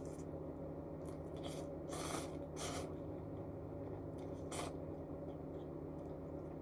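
A few short eating noises from a person eating spicy instant noodles: one about two seconds in, another just after, and one at about four and a half seconds. A steady low electrical hum runs under them.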